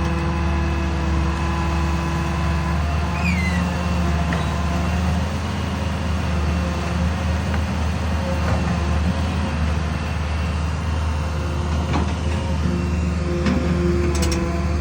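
Excavator's diesel engine running steadily, a low drone with held tones above it, a few faint clicks and a brief falling squeak about three seconds in.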